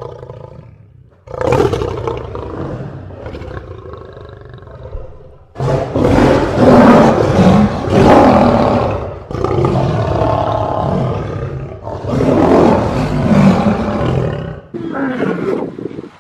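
Lion roaring repeatedly: a run of long, loud roars, each a few seconds long, the loudest about six to nine seconds in.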